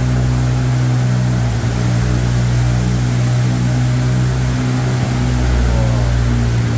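A small tour boat's motor running with a steady low drone.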